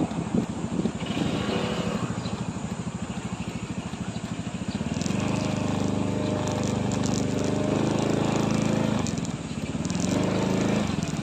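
Motorcycle engine running while riding. It pulls harder from about halfway, eases off briefly near the end, then picks up again.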